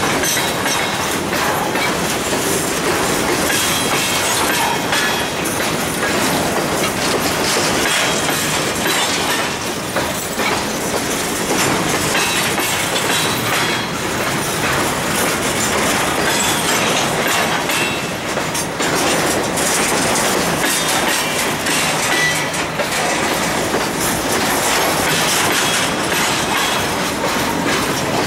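Empty covered hopper cars of a freight train rolling past close by: steady wheel-on-rail rumble with the clickety-clack of wheels over rail joints, and brief high wheel squeals here and there.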